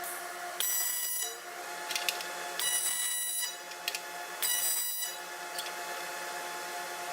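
TIG welding arc on aluminium buzzing in short bursts, each lasting under a second and coming about every two seconds, over a steady electrical hum.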